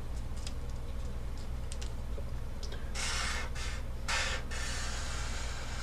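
Sharpie marker drawing on paper: light ticks of the tip, then two longer scratchy strokes about three and four seconds in, over a low steady hum.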